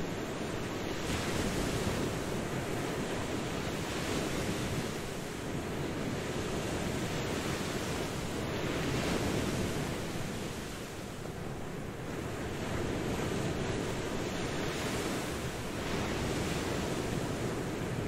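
Ocean surf: a continuous rush of waves breaking and washing in, swelling and easing every few seconds.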